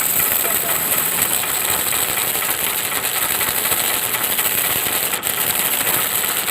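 Small DC motor of a homemade miniature machine running steadily, a buzzing noise with a high-pitched whine over it.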